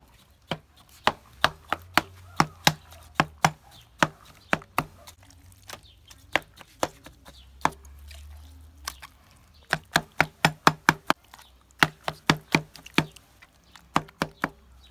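Kitchen knife stabbed again and again into raw lamb legs, each stab a sharp knock, about two to three a second in runs with short pauses, quickening to a rapid flurry about ten seconds in.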